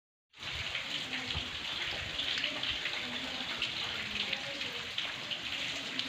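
Steady rain falling and pattering on the ground, a dense hiss of many small drop ticks, starting abruptly just after the beginning.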